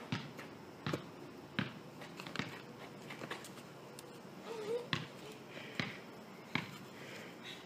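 Faint outdoor background with light taps and clicks at irregular intervals, about one every second or less, and one brief chirp near the middle.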